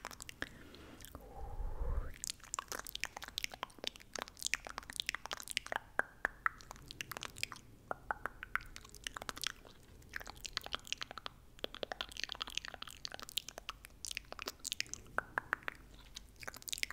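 Close-miked ASMR mouth sounds: wet tongue clicks and lip smacks, many sharp clicks a second in an uneven run, starting about two seconds in.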